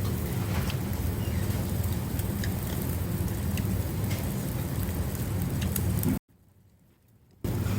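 Smoked pork belly sizzling on a grill, with scattered small pops over a steady low rumble. About six seconds in, the sound breaks off to near silence for a little over a second, then comes back.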